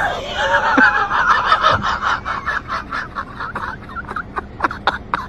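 A person laughing hard: a long, fast, high-pitched run of laughs that slows and breaks into separate short laughs near the end.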